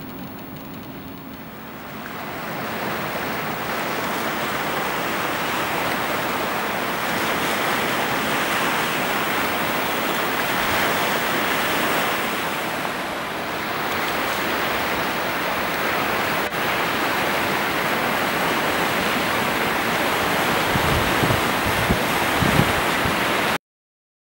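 Steady rush of water and spray from the hulls and wake of the SWATH patrol boat P-06 Cēsis running past at speed. It swells about two seconds in, with a few low rumbles near the end, and cuts off abruptly just before the end.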